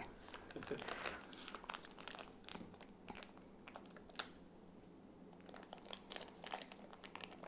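Faint, intermittent crinkling of a cream cheese foil wrapper as a knife cuts chunks of the cheese out of it, with a few light knife ticks.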